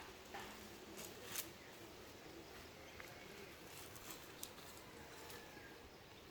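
Faint outdoor background with a few short, sharp clicks, the loudest about a second in.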